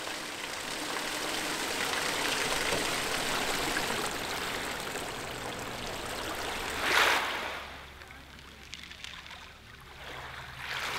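Water running and splashing steadily in a sewage treatment works' open tanks and weirs. About seven seconds in it swells briefly, then drops to a faint low hum.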